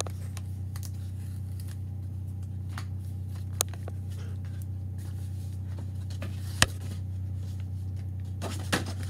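Cardboard scrapbook pages being handled and unfolded, with a few sharp taps and clicks, the loudest about two-thirds of the way in, over a steady low hum.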